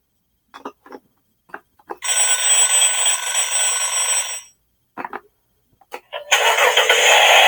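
A few sharp clicks, then a bell ringing loudly for about two and a half seconds. More clicks follow, then a loud ringing sound starts again near the end.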